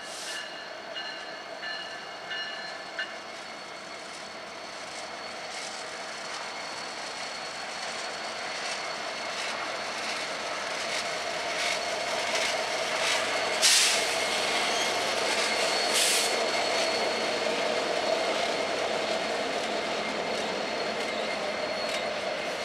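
Freight train with two diesel locomotives approaching and passing close by, the engine sound growing louder until the locomotives pass, then the clicking of wheels over the rails as double-stack intermodal cars roll by. A high tone beeps about twice a second near the start.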